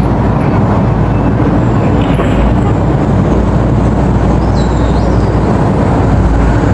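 Excavator's diesel engine running steadily: a loud, even, low rumble.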